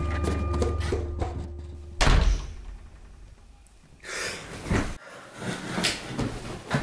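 A sustained music drone cuts off with a single loud slam about two seconds in, which rings out into a brief hush. From about four seconds, short sharp gasping breaths follow, from someone waking with a start.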